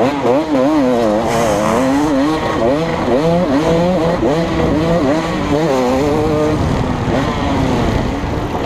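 KTM 250 SX two-stroke motocross bike racing, its engine revving up and down in quick swings, two or three a second, as the throttle is worked over the bumps and through the turns, heard close up from the rider's helmet.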